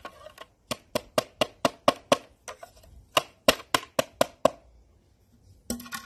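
Pestle pounding mint leaves in a small bowl used in place of a mortar: a fast, even run of sharp taps, about five or six a second, that stops a little over four seconds in.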